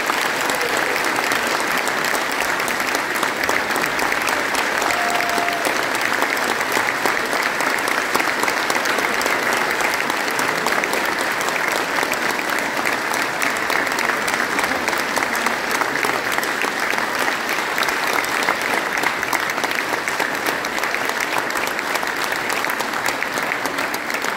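Large audience applauding steadily, a dense even clapping that holds at the same level throughout.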